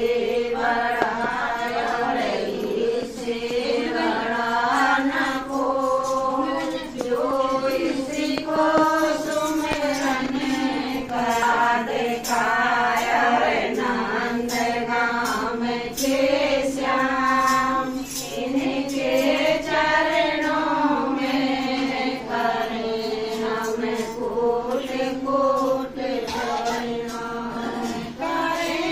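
A group of women singing a Hindi devotional kirtan together in chant-like unison, with steady percussion strokes beneath the voices.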